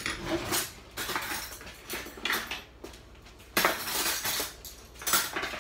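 Kitchen dishes and cutlery being handled, clattering and clinking in about five separate bursts.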